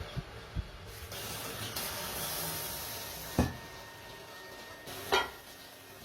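A hissing spray for about two seconds, followed by two sharp knocks about two seconds apart.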